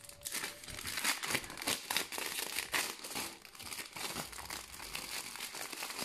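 Clear cellophane wrapping crinkling and crackling as it is pulled open and slid off a stack of cardboard sheets, a dense, irregular run of crackles.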